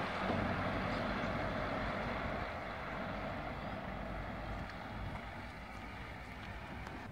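Road traffic: the engine and tyre noise of a vehicle on the road, fading steadily over the first five seconds or so.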